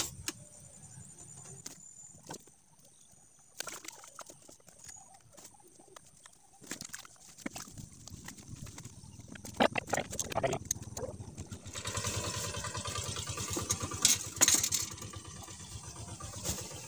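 Scattered knocks and clicks of gear being handled on a bamboo fishing platform. From about twelve seconds in, the steady hum of a boat engine out on the lake joins and keeps running.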